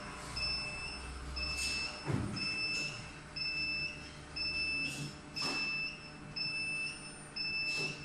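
Warning buzzer of an automatic screen rinsing machine beeping steadily, a high beep about once a second, with a few short swishes between beeps.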